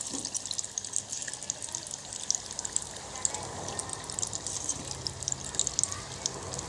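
Risoles deep-frying in hot oil: a steady sizzle full of small crackles and pops.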